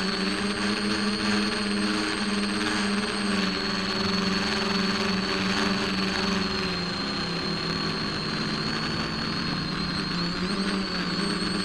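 Electric motor and propeller of an FPV model plane, picked up by its onboard camera: a steady hum with a high whine over it. The pitch drops slightly about seven seconds in, as the throttle comes off, and rises again near the end.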